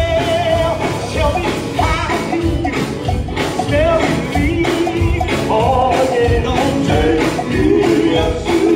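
Live gospel music: singers holding long, wavering notes over a band keeping a steady drum beat.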